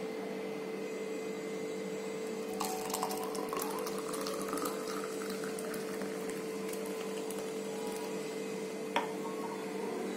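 Hot carrot milk poured from a saucepan into a glass mug, splashing and trickling as it fills, starting a couple of seconds in, over a steady low hum. A single click near the end.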